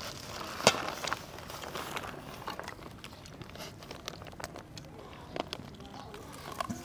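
Eating rice by hand from a stainless steel bowl: fingers mixing and scooping the rice against the metal and mouthfuls being eaten. It comes as scattered small clicks and crackles, the sharpest click just under a second in.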